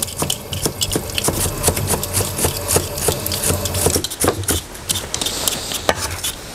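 Cleaver chopping fish-mint (zhe'ergen) roots into short pieces on a round wooden chopping board: quick repeated knocks of the blade on the wood, over a steady low hum.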